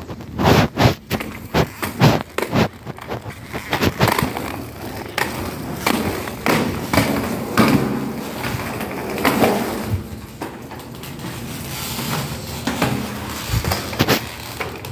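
Roller skate wheels rolling over pavement. A quick run of clicks and knocks comes over the first few seconds, then a steadier rolling rumble with an occasional knock.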